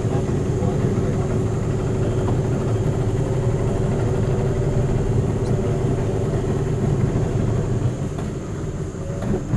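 Motorized canoe's engine running steadily, a constant hum with a deep drone under it; it eases off a little shortly before the end.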